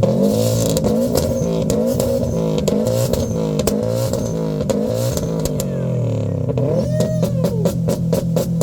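Subaru WRX STI's turbocharged flat-four held on a two-step launch-control rev limiter, its pitch bouncing up and down with repeated exhaust pops and bangs. Near the end the bangs come in a fast, even string of about seven a second.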